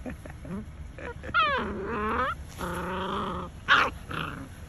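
Doberman puppies play-fighting: one gives a whining yelp that falls steeply in pitch, then a longer, steadier whining growl. About three and a half seconds in comes a short, sharp yip, the loudest sound.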